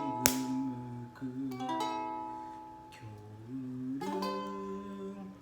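Ukulele strummed by hand, chords ringing out and fading, with a sharp strum just after the start and fresh chords about a second and a half and four seconds in.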